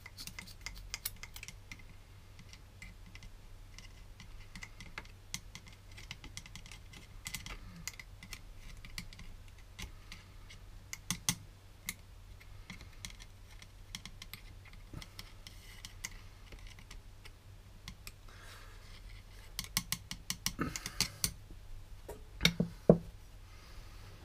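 Hand-pumped oil can clicking over and over as its lever is worked, squirting EP90 gear oil into the gears of a Detroit TrueTrac differential. A few louder knocks come near the end.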